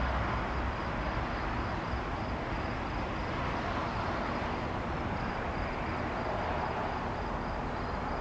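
Jet airliner on final approach, still some way off: a steady, even engine noise that holds level, with no sudden events.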